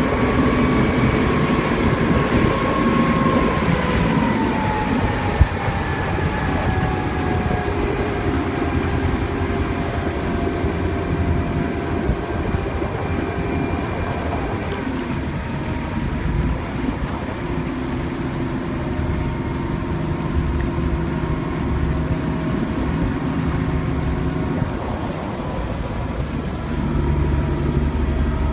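Motorboat engine running with water rushing and splashing past the hull. The engine's pitch drops a few seconds in as the boat throttles back, then stays steady. There is one sharp knock about five seconds in.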